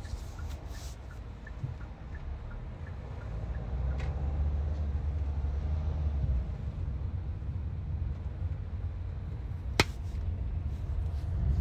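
Low, steady rumble of road and engine noise inside a moving car's cabin, swelling for a few seconds in the middle, with one sharp click near the end.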